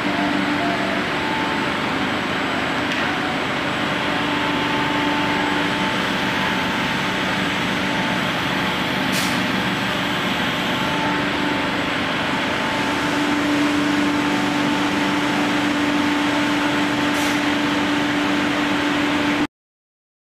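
Machinery of an HDPE pipe extrusion line running: a steady mechanical drone with a couple of held tones, which cuts off suddenly near the end.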